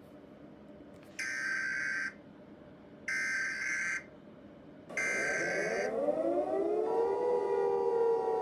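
Three short bursts of Emergency Alert System data tones (the SAME header), each about a second long with a second's gap between them. With the third burst a siren starts winding up, rises in pitch and settles into a steady wail.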